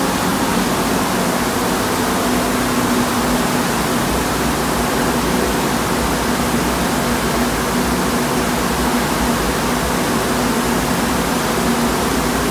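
Powder-coating spray booth's extraction running with an electrostatic powder gun spraying: a steady rush of air with a faint low hum underneath.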